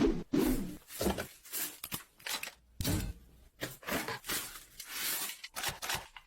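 Packaging being torn and opened by hand: an irregular run of rustling, crinkling and tearing noises.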